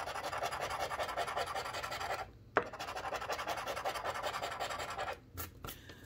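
A coin scraping the coating off a scratch-off lottery ticket in quick back-and-forth strokes. There is a brief pause and a sharp tap a little over two seconds in, then the scratching resumes and stops about a second before the end.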